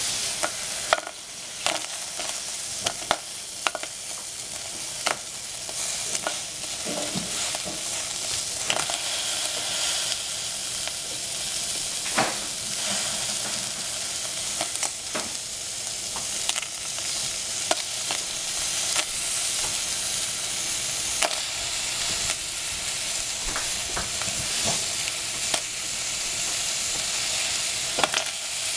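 Steady sizzling hiss from a stainless steel saucepan on the stove. Chunks of zucchini hand-cut into the pan land among the squash with irregular sharp taps, every second or few seconds.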